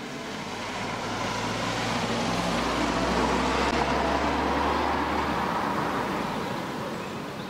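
Mercedes-Benz SLK200 Kompressor (R170), with its supercharged 2-litre four-cylinder engine, driving past: engine and tyre noise grow louder to a peak about three to four seconds in, then fade as the car moves away.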